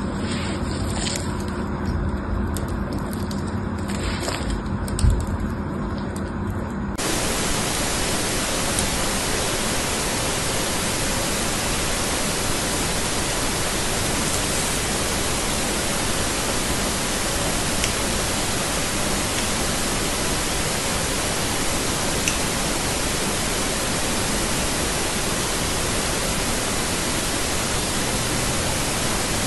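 A blade carving a bar of soap into small cubes makes a crumbly cracking, with one sharp knock about five seconds in. From about seven seconds a steady, even hiss takes over, with only a few faint scratches as a blade scores lines into another soap bar.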